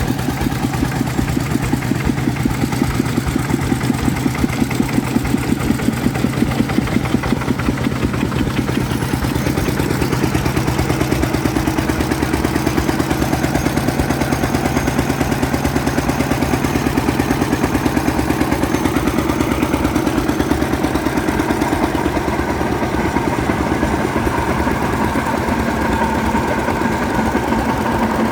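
Old stationary engine running steadily at an even idle, with a regular pulsing beat.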